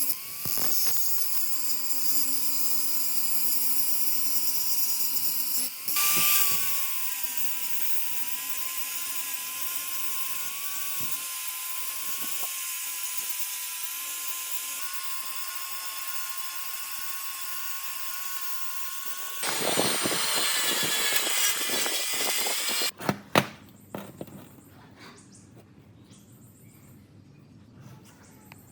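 Electric power tool running with a steady high whine. It gets louder and noisier about 19 seconds in and stops about 23 seconds in, followed by a few sharp knocks.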